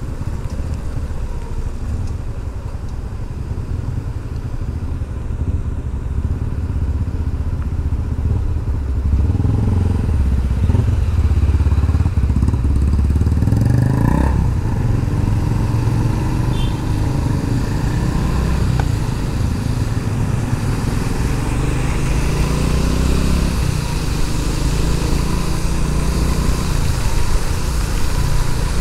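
Honda Pop 110i's small single-cylinder engine running while the motorcycle is ridden, under a steady rush of road and wind noise; it grows louder about nine seconds in.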